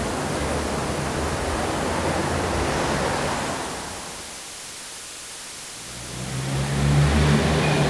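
Steady roar of road traffic that fades away a few seconds in. Near the end a motor-vehicle engine comes in with a low, steady hum and grows louder.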